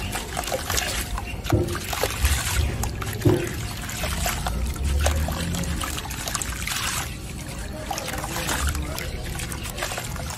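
Water sloshing and dribbling as a soaked, soft sand-cement block is dipped, squeezed and crumbled by hand in a tub of water, with a few sharper splashes in the first few seconds.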